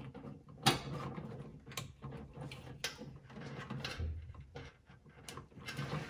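Wires and a plastic wiring connector being handled: a few short, sharp clicks with light rustling as a wire lead is pushed into its connector sleeve.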